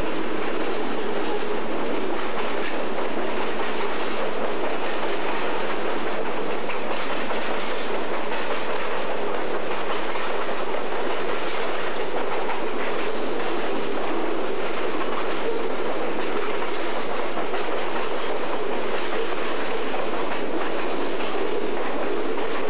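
Freight cars of a long freight train, boxcars and tank cars, rolling past close by: steady noise of steel wheels on rail, with scattered clicks.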